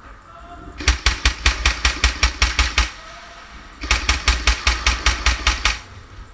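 Airsoft gun firing two bursts of rapid shots, about seven a second, each lasting about two seconds with a short pause between them.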